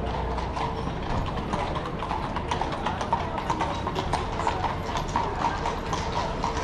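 Horse's hooves clip-clopping, a carriage horse passing at a walk, over steady street background noise. The hoofbeats grow louder from about halfway through.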